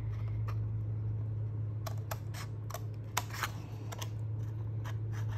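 Scissors snipping tiny tabs off a paper box blank: a series of short, sharp snips, most of them between about two and four and a half seconds in, over a steady low hum.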